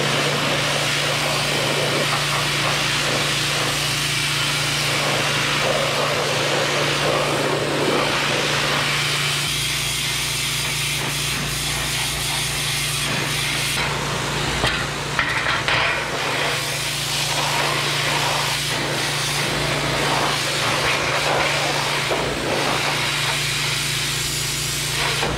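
Pressure washer running steadily, its water jet hissing against a painted steel tractor part and blasting off paint and rust loosened by electrolysis, over a steady low hum from the washer.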